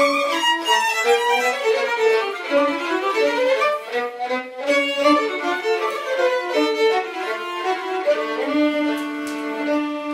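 Two violins playing a Romanian folk tune together: a quick, busy melody that settles into long held notes about eight seconds in.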